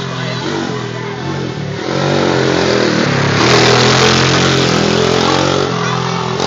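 ATV engine running under way, revving up about two seconds in and holding higher for a few seconds before easing off slightly near the end.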